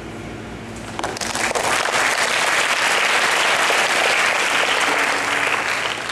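Audience applauding. The clapping swells about a second in and dies away near the end.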